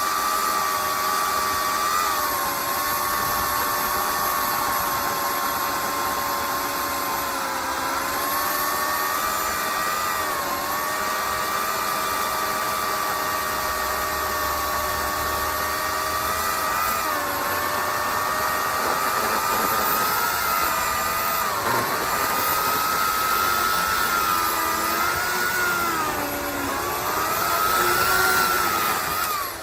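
Electric chainsaw motor running with a steady whine that dips in pitch several times, as it does under cutting load, then stops suddenly at the end.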